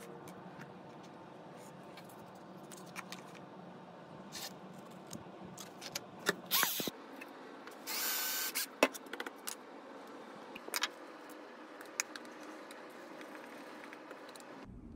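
Festool cordless drill boring a short pilot hole into walnut for under a second, about eight seconds in, among scattered clicks and taps of small parts and tools being handled.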